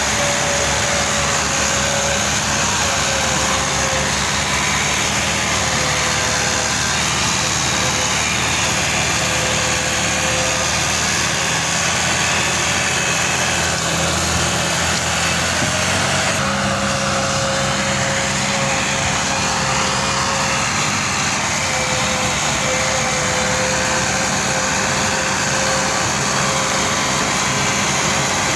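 Diesel engines of two farm tractors, a Fiat 480 and a Fiat 640, running steadily under load as they pull a loaded sugarcane trolley in tandem, one chained in front of the other. The engine note shifts a little about sixteen seconds in.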